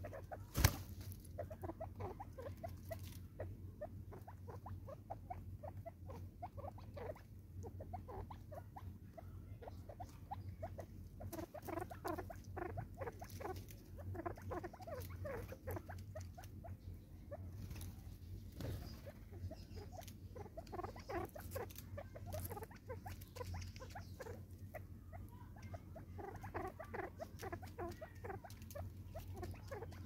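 Natal spurfowl and a hornbill pecking seed from a plastic bottle feeder: a busy, irregular run of light taps and rustles, with one sharper click about a second in.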